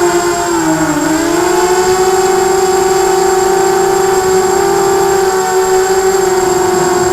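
Quadcopter's electric motors and propellers whining loudly in flight. The pitch dips briefly about a second in as the throttle eases, then holds steady.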